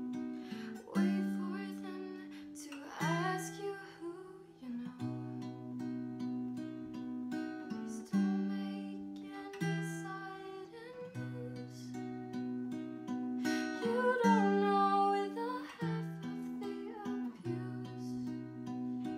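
Acoustic guitar playing a slow chord progression, the chords changing every couple of seconds. A woman sings softly in two short phrases, near the start and about two-thirds of the way through.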